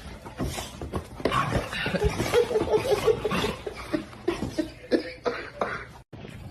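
A person laughing in a run of quick chuckles, amid scattered small knocks and clicks.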